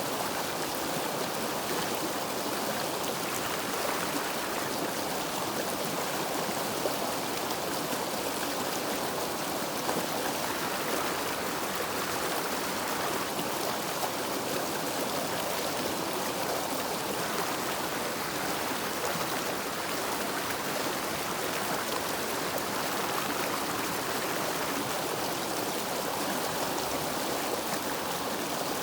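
River water rushing and burbling over rocks, a steady, even flow of sound with no letup.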